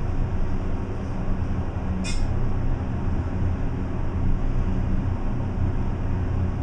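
Steady low rumble and whir inside a 1991 Dover hydraulic elevator cab as it travels up, with the cab's ventilation fan running really loud. A short sharp tick about two seconds in.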